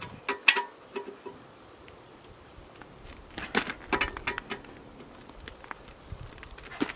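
Short metallic clanks and rattles from tire-changing tools being handled, in two bursts: one about half a second in and a longer one about three and a half seconds in, some with a brief ring.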